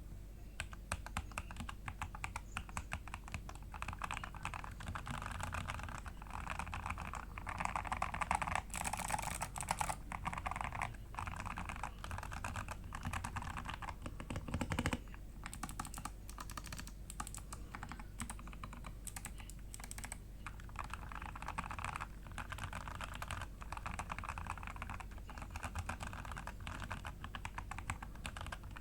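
Typing on a Royal Kludge RK84 mechanical keyboard with modded switches and case and AKKO Black & Bronze keycaps: a fast, continuous run of keystrokes, with one heavier thud about halfway through.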